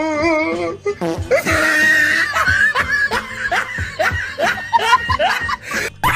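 Music with laughter over it, in short repeated rising bursts.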